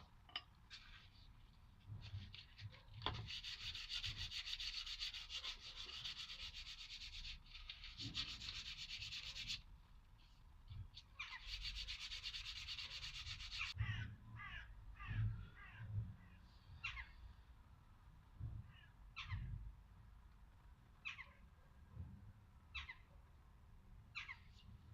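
Sandpaper rubbing on the round beech shaft in two long spells of quick back-and-forth strokes, the first lasting about six seconds and the second about two, followed by scattered light taps and knocks.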